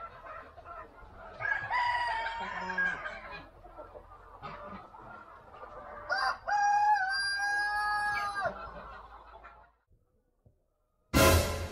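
A rooster crowing twice, each crow a long pitched call lasting about two seconds, the second one starting about six seconds in. After a short silence, loud music cuts in right at the end.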